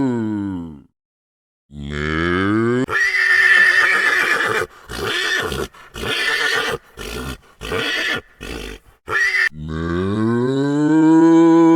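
A horse whinnying: a long neigh that breaks up into a string of short pulses, set between two long cow moos, one ending about a second in and the other starting near the end.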